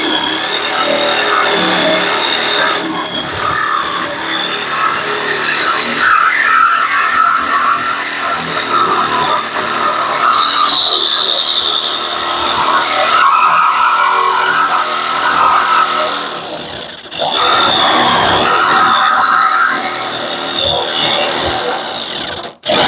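Corded electric jigsaw cutting a hole through the sheet-steel floor of a pickup truck bed, running continuously with a loud, high-pitched rasp. It stops briefly twice: about 17 seconds in and again just before the end.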